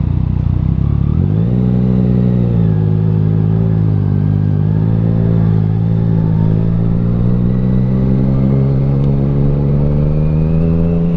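Yamaha Tracer 900's inline three-cylinder engine through an Akrapovic titanium full exhaust, pulling under acceleration on the ride. The engine note rises about a second in, dips once shortly after, then climbs slowly and steadily.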